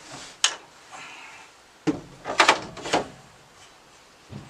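Sharp wooden knocks and bangs from a board being worked into place against a wooden barn wall: one knock about half a second in, another near two seconds, then a quick run of three or four strikes.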